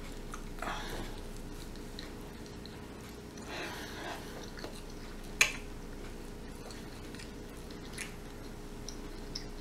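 A person chewing a mouthful of sausage stir fry with the mouth closed, soft and wet. There is one sharp click about five seconds in and a couple of fainter clicks near the end.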